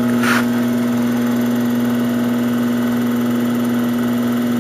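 Electric pottery wheel's motor humming steadily as the wheel spins under the clay, a constant low hum. A brief soft swish sounds just after the start.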